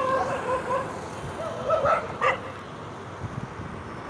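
Dog barking: a drawn-out, pitched cry at the start, then a few short, sharp barks about two seconds in.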